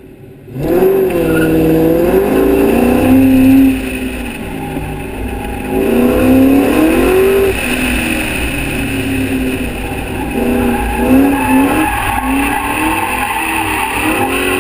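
Ford Mustang Cobra engine launching hard about half a second in, then revving up and dropping back again and again as it accelerates and lifts between cones on an autocross run. Wind rushes over the body-mounted microphone.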